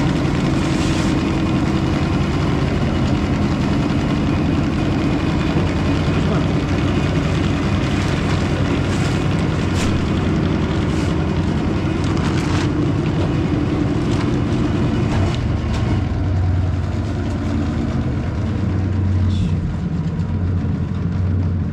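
A motor vehicle's engine running steadily at an even pitch, with a few light clicks or rattles over it.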